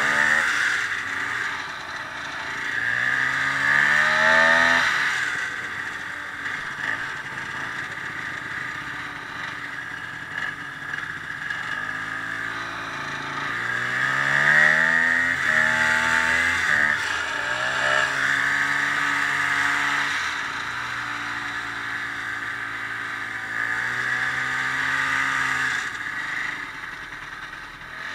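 Ski-doo snowmobile engine running under way, revving up and easing off several times, its pitch climbing and dropping back, with a steady rushing noise over it.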